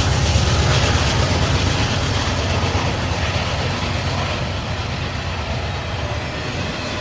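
Norfolk Southern freight train rolling past, a steady rumble and rattle of wheels on rail that slowly gets quieter.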